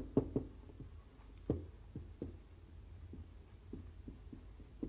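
Marker writing on a whiteboard: a quiet series of short, irregular strokes and taps as letters are drawn, the firmest stroke about one and a half seconds in.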